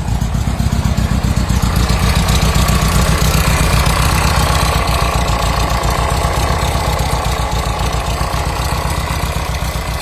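Volkswagen Combi's air-cooled Type 3 flat-four idling with a fast rhythmic noise from the engine that sounds like something rubbing. The mechanics judge it internal, since it changes with the oil filler cap off, and it is heard only at low revs.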